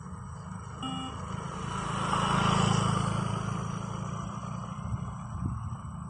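A short electronic shuttle beep from a beep-test recording sounds about a second in. Then a passing vehicle rises to its loudest near the middle and slowly fades.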